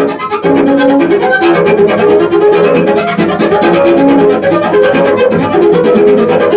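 Solo double bass bowed with a rapid, scratchy pulse of bow strokes under high notes that shift every fraction of a second.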